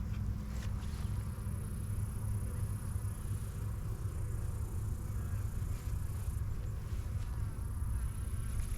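Steady hum of many honeybees buzzing around an open hive, with a few faint clicks in the first second.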